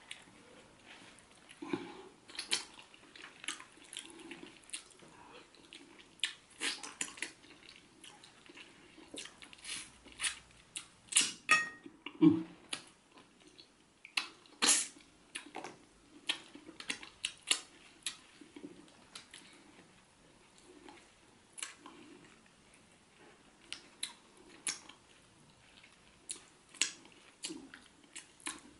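A person eating a catfish head by hand: irregular wet smacks, sucking and chewing as the flesh is picked and sucked off the bones, loudest a little before the middle.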